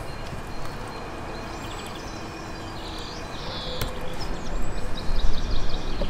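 Small birds chirping in short repeated trills over steady outdoor background noise, with a low rumble swelling up about four and a half seconds in.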